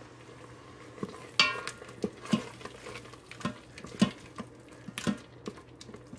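A wooden spoon stirring thick pineapple-coconut pachadi in an Instant Pot's stainless steel inner pot. It makes irregular knocks and scrapes against the pot wall, starting about a second in, and one knock gives a brief metallic ring.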